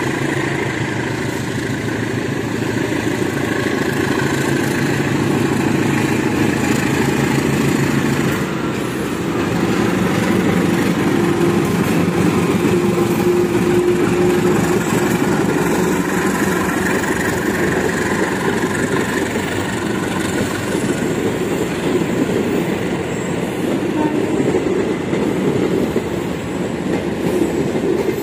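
GE CC206 diesel-electric locomotive's engine running under power as it pulls a passenger train away and passes close by. Later the coaches roll past, their wheels clattering over the rail joints.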